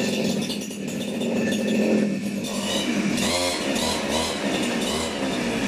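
Two-stroke engine of a CG411 grass cutter with a rice harvester attachment, running at speed with a brief rise in revs a little past halfway.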